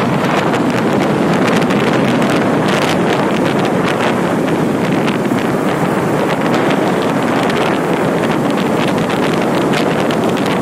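Steady wind rush and buffeting on the microphone of a moving Pulsar NS200 motorcycle at road speed, with no break and no clear engine note standing out.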